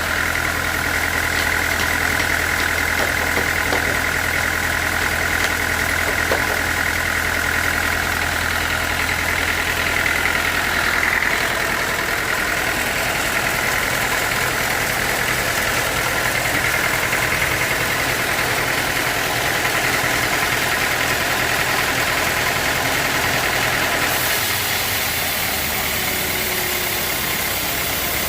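Sawmill machinery running steadily: an engine's low hum with a higher steady whine over it. The sound shifts about 24 seconds in.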